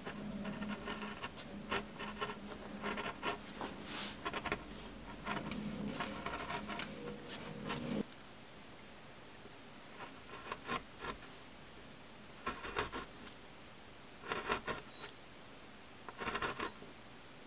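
Small hand gouge cutting into a wooden woodcut block: a series of short scratchy scraping strokes as the blade pares away wood. A steady low hum sits under the first half and stops abruptly about eight seconds in; after that the strokes come singly, a second or two apart.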